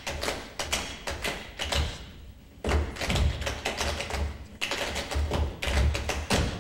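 Tap shoes of a group of dancers striking the stage floor in fast rhythmic taps and stamps, over a backing beat. The taps stop briefly about two seconds in, then start again.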